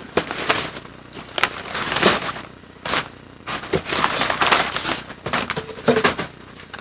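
Packing material and cardboard rustling and crinkling in irregular bursts with sharp crackles as a large shipping box is unpacked by hand.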